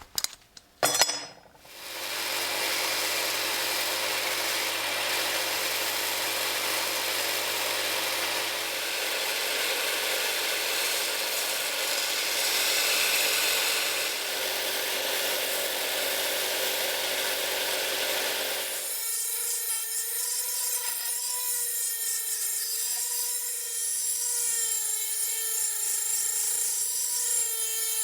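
An electric power tool starts about two seconds in, after a few clicks, and runs steadily as it works the material. About two-thirds of the way through its sound changes to a wavering whine that rises and falls as the load changes.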